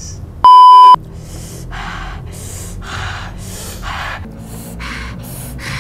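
A loud, single-pitched censor bleep lasting about half a second, followed by quick breathy gasps or pants about two a second.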